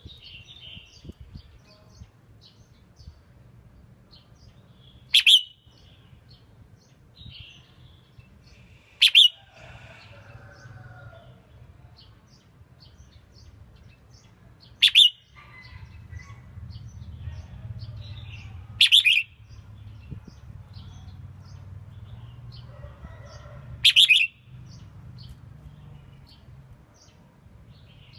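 Red-whiskered bulbul giving short, sharp, loud calls, five of them spaced about four to six seconds apart, with faint chirps in between over a low background hum.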